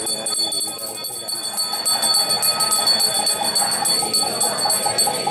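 Small ritual hand bell shaken in a fast, steady jingle, its ringing tones held on under the strokes.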